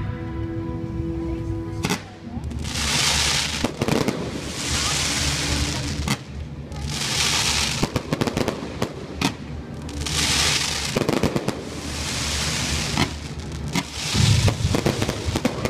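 Fireworks display with music playing under it: held musical notes for about two seconds, then sharp bangs and repeated bursts of crackling, each about a second long, through the rest.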